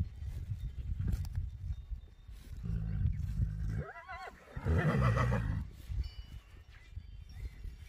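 A horse whinnies once about halfway through: a short wavering call that runs straight into a louder, rougher burst. A low rumble runs underneath.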